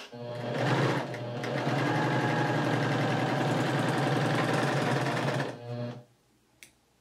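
Husqvarna Viking Huskylock s25 serger sewing a four-thread overlock test stitch on a fabric swatch. The machine starts at once, runs at a steady fast stitch rate for about five seconds, and stops about six seconds in.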